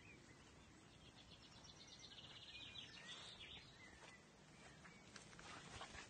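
Faint outdoor ambience in which a bird sings a rapid high trill for about two seconds, starting about one and a half seconds in, followed by a few short chirps. Soft rustling comes in near the end.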